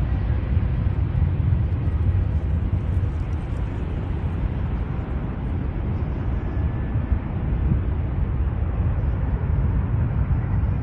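Aircraft engine noise, a steady low rumble without any clear tone.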